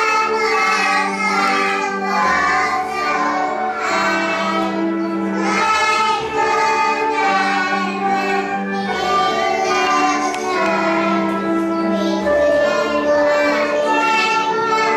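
Children's song: young children's voices singing over an instrumental backing track with a steady bass line.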